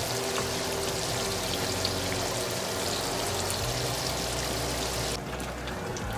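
Whole bluegills frying in a skillet of hot oil, sizzling steadily with fine crackles. A little after five seconds in, the sizzle turns duller and quieter.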